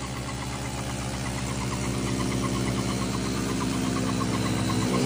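Two Hero motorcycles, a Splendor and a Passion, with single-cylinder engines running hard under load in a rope tug-of-war, their rear tyres spinning in the dirt. A steady engine drone that slowly grows louder.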